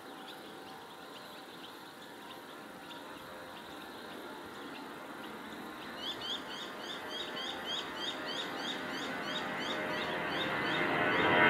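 Distant rushing jet noise from a four-engine Airbus A340-300 on its takeoff run, swelling in the last few seconds as the climbing airliner comes nearer. Over it a small bird chirps, and from about halfway through its short chirps come in a quick even series, about three a second.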